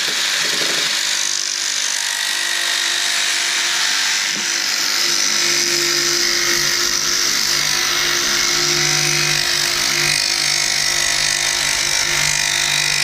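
Corded Milwaukee jigsaw running steadily as its blade saws through large-diameter white PVC pipe, heard from inside the pipe.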